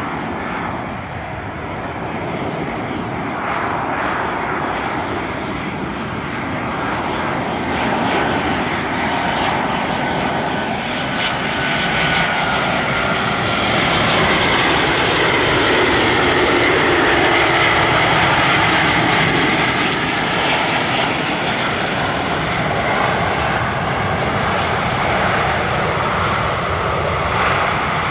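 Boeing 737-800's CFM56-7B turbofan engines on final approach: a steady jet rumble and hiss that builds to its loudest as the airliner passes, about halfway through, with a faint high whine falling slightly in pitch. The sound carries on as the jet rolls out on the runway near the end.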